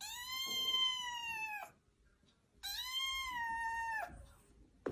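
Black-and-white kitten meowing twice: two long, high meows of about a second and a half each, the pitch dipping slightly at the end of each.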